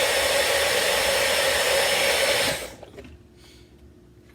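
Electric blender running steadily as it purées ginger, garlic, honey and apple cider, a second blend to break down the fibrous ginger. The motor is switched off about two and a half seconds in.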